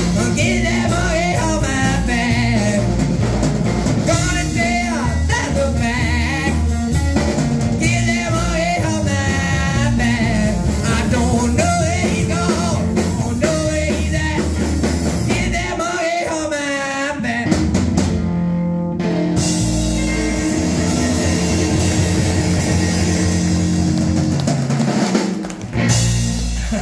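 Live rockabilly band: a man singing with a wavering vibrato over hollow-body electric guitar, upright bass and drum kit. In the last third the band holds a long steady chord, which ends shortly before the close.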